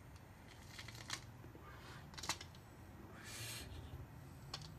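Faint clicks and handling noises from a lighter and a small smoking pipe, with a short breathy hiss a little past halfway.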